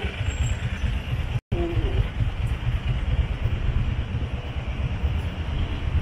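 Steady low rumble of city street noise, which cuts out completely for an instant about a second and a half in.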